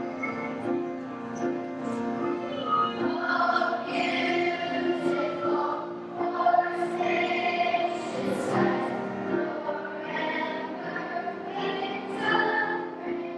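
Elementary school children's choir singing, with steady sustained accompaniment underneath.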